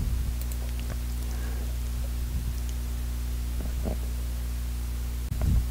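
Steady low hum made of several evenly spaced tones, unchanging throughout, with a couple of faint soft ticks.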